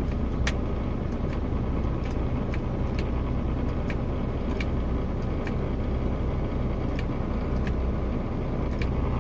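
Mercedes-Benz Actros truck's diesel engine idling steadily in neutral, with light ticks about twice a second, while the automated gearbox fails to engage any gear.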